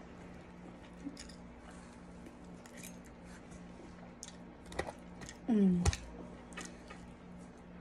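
Eating sounds: light clicks and scrapes of a metal fork in a foil takeout tray and soft chewing, with a short falling vocal hum just past halfway. A faint steady hum runs underneath.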